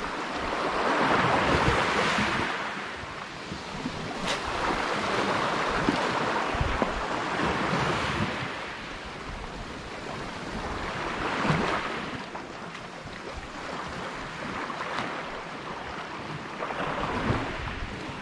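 Sea waves surging and washing against shoreline rocks in slow swells every few seconds, with wind on the microphone and one sharp click about four seconds in.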